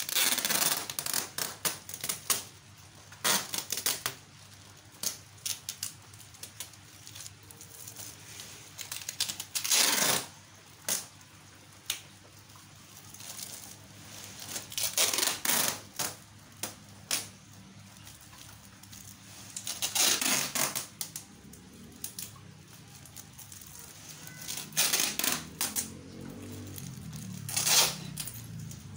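Adhesive packing tape pulled off its roll in repeated short, rasping bursts, with plastic sheeting crinkling, as a plastic bag is taped tight around a plant pot to seal it airtight. The longest pull comes about ten seconds in.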